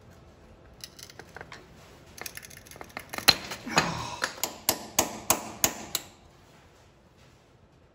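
Hand tools clicking and tapping on metal: a few light clicks, then a run of sharp knocks at about three a second that stops about two seconds before the end. This is work on the old rockshaft seal as it is drilled and screwed into to pull it out.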